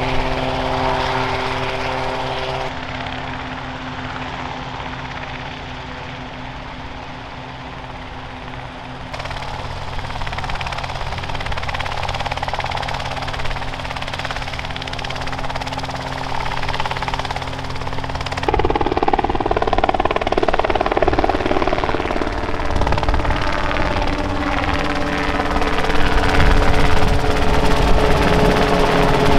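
Light two-seat kit helicopters of the Rotorway type running in a string of shots: engine and rotor of one hovering low and setting down on grass, then one flying low overhead. The sound gets louder after about two-thirds of the way through and is loudest near the end, as the overhead helicopter comes close.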